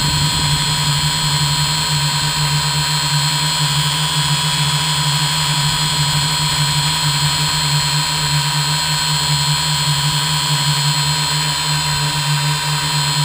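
Multirotor drone's electric motors and propellers whirring steadily, heard from a camera mounted on the frame, with a constant low hum and several steady high whines. The pitch holds level as the drone hovers in position hold.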